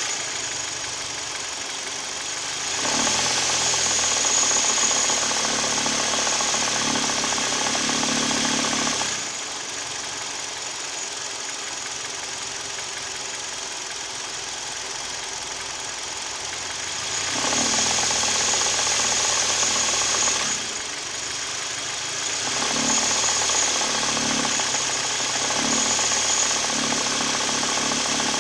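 Hyundai/Kia G4KD 2.0-litre Theta II four-cylinder petrol engine running with a knock, which the owner takes for piston knock. The sound gets louder for a few seconds at a time, three times: about three seconds in, about seventeen seconds in and about twenty-two seconds in.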